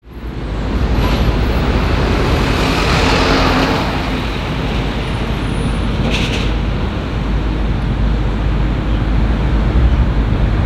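Road traffic running by with a steady low rumble. A passing vehicle swells over the first few seconds, and a short hiss comes about six seconds in.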